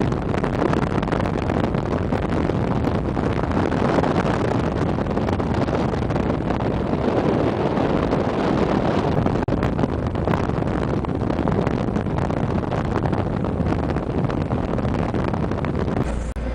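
Steady rush of wind and road noise from a moving car, heard through an open side window, with wind buffeting the microphone.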